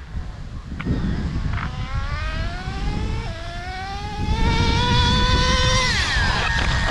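Traxxas Slayer Pro 3.3 nitro RC truck's small two-stroke nitro engine accelerating with a high whine that climbs in pitch. About three seconds in the pitch steps down as the two-speed transmission shifts up, then climbs again, and it falls away near the end as the throttle comes off.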